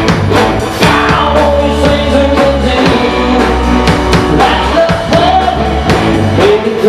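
Rock band playing live: drums, bass and guitar under a melodic line, between sung verses of the song.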